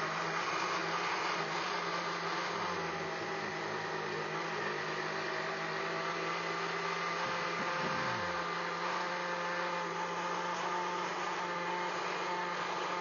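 Countertop blender motor running steadily at full speed, blending pancake batter in its jar.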